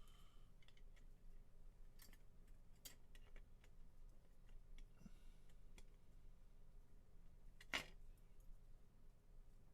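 Near silence with faint, scattered small clicks of plastic model-kit parts being handled and fitted, one sharper click near the end.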